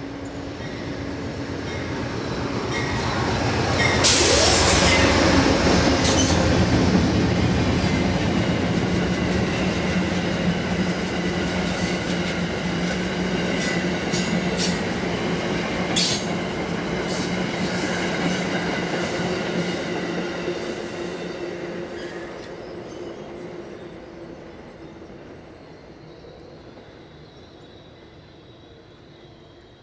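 Amtrak GE P42DC diesel locomotive leading a passenger train past at track speed. Its sound peaks and drops in pitch as it passes about four seconds in. The passenger cars then roll by with wheels clicking over the rail joints, and the sound fades as the train moves away near the end.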